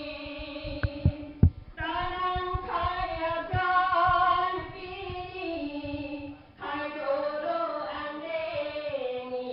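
Voices singing a slow devotional song in long held notes that step slowly in pitch, with a few sharp knocks about a second in.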